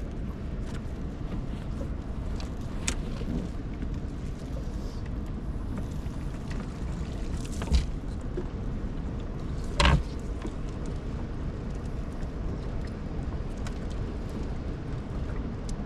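Steady low noise of wind and water around a small fishing boat, with a few sharp knocks on the boat, the loudest about ten seconds in.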